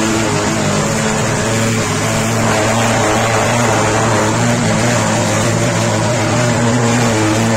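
Portable mosquito fogging machine running, a steady, loud drone with an even buzz as it puffs out dense insecticide fog.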